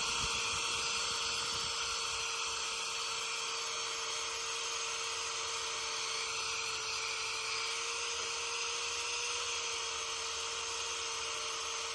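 Electric drill spinning a wire brush attachment against a cast-iron garden bench, scrubbing off oxidized, chipping paint. It gives a steady whine with a hiss from the bristles.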